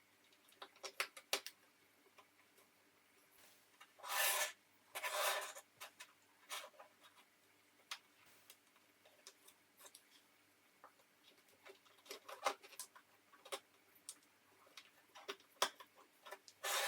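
Light clicks and taps of small watchmaking tools against a steel watch case and bracelet during reassembly, with two brief scraping rubs about four and five seconds in and a third near the end.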